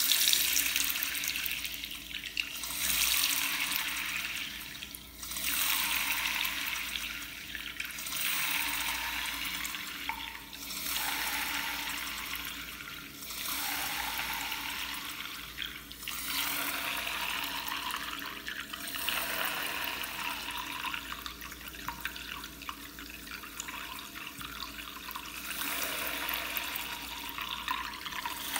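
A thin stream of tap water running into a ceramic washbasin, splashing onto the metal pop-up drain, with a steady hiss that swells and eases every few seconds.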